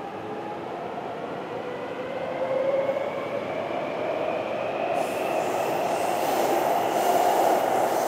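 Taipei Metro Songshan–Xindian line train running through a tunnel, heard from the front of the train: a steady rumble of wheels on rail with a whine that rises slowly in pitch as the noise grows louder. Extra hiss in the high range comes in about five seconds in.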